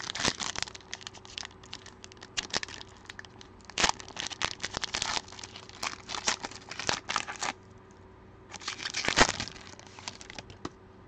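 Plastic wrapping crinkling and tearing as a box of trading cards is unwrapped and opened, in irregular bursts of crackle, the loudest about nine seconds in.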